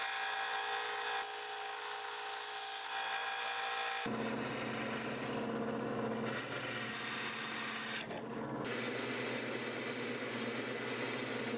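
Wen 8-inch benchtop drill press running, its bit cutting into a 1075 high-carbon steel knife blank: a steady motor hum under the scraping of the bit in the steel. The sound changes abruptly about four seconds in and again near eight seconds.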